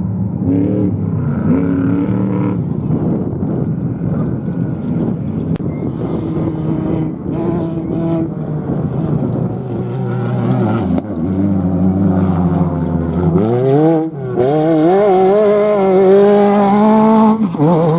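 Off-road race vehicle engine running. Its pitch climbs sharply about three-quarters of the way in as it accelerates, then stays high and wavering.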